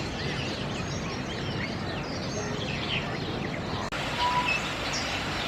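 Many birds chirping and calling at once, short rapid notes over a steady background of noise, with an abrupt break about four seconds in.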